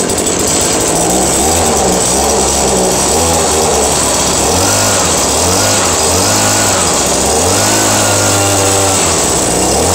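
Echo PB-2620 handheld leaf blower's small two-stroke engine running, freshly started, over a steady rush of air. In the second half it is revved up and down several times.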